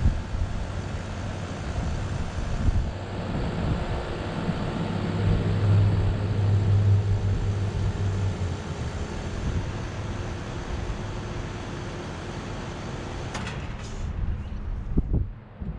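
2007 Carrier Comfort central air conditioner outdoor condensing units running: a steady compressor hum with fan noise, the hum strongest around the middle. About fourteen seconds in the higher fan noise drops away, leaving a lower hum.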